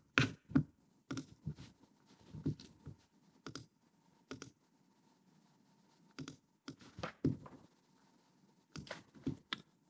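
Irregular clicks and taps on a computer mouse and keyboard, singly and in small clusters with short pauses between.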